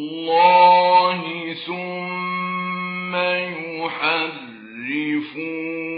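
Solo male voice reciting the Quran in the melodic mujawwad style, holding long notes that bend and glide in pitch.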